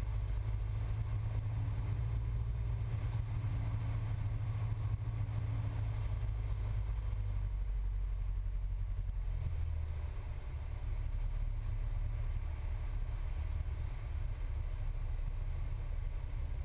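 Cessna 172's four-cylinder piston engine and propeller droning steadily in the cabin on final approach. The note shifts lower about nine or ten seconds in.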